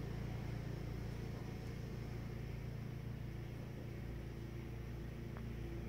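Lawnmower engine running steadily, a low even hum.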